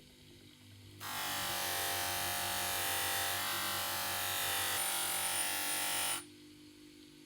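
A small handheld electric power tool runs steadily for about five seconds, starting abruptly about a second in and cutting off about a second before the end.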